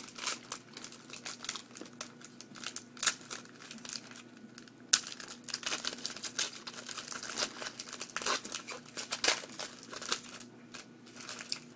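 A trading card pack being opened and handled: the wrapper crinkles and tears in irregular crackles, with a few sharper snaps, the loudest about 5 and 9 seconds in.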